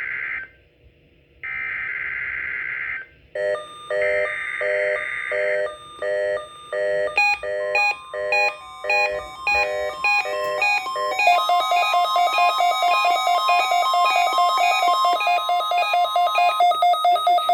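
NOAA Weather Radio Required Weekly Test: screeching SAME digital header bursts, with several stations' tones overlapping. A steady 1050 Hz warning alarm tone joins them, and beeping alert tones pulse over it, turning into a fast, continuous beeping about eleven seconds in.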